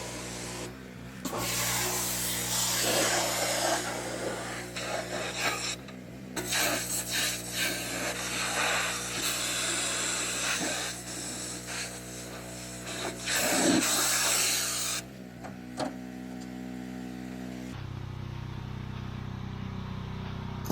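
Pressure washer running, its motor humming steadily under the hiss of the spray wand. The spray comes in long bursts with short breaks and cuts out near the end, where the machine's note changes as it runs without spraying.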